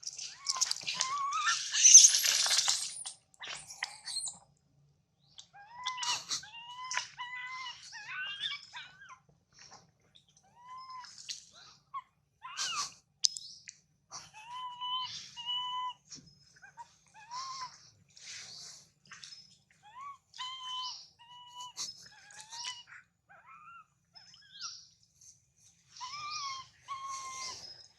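Baby monkey calling: a long irregular series of short, high-pitched squeaky calls. A louder, harsher noisy burst comes about two seconds in.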